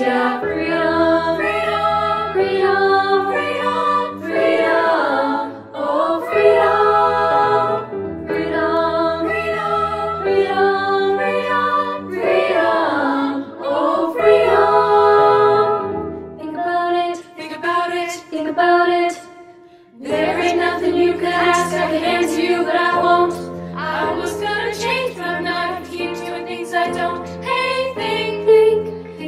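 Girls' choir singing a soul song in close harmony, with a low bass line under the chords. The sound thins out about 17 seconds in and the full group comes back in about 20 seconds in.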